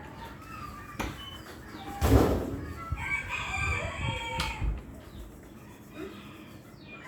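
A rooster crowing once, a drawn-out call starting about three seconds in. A loud thump comes just before it, about two seconds in.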